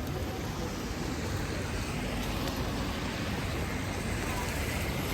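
Steady city street ambience in the rain: road traffic running, with an even hiss of rain and wet roads.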